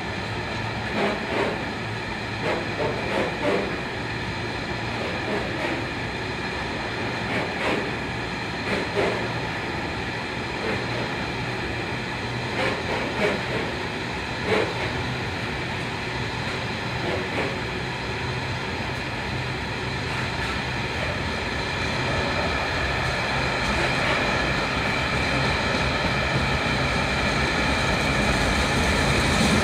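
Loaded wagons of a long freight train rolling past at speed: a continuous rumble with clusters of wheel clatter over rail joints. The sound grows steadily louder over the last several seconds.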